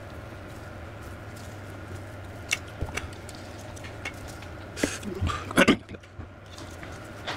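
Metal impact-wrench parts being handled on a workbench: a few light clicks, then a cluster of knocks and scrapes about five seconds in, over a steady low hum.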